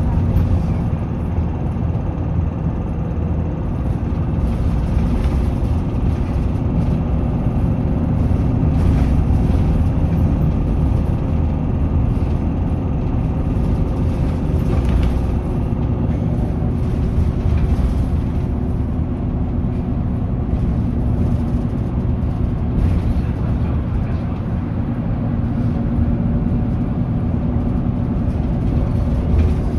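Isuzu Erga city bus's 5.2-litre four-cylinder turbo-diesel running at road speed, heard from inside the cabin: a steady engine drone mixed with tyre and road noise that swells and eases slightly.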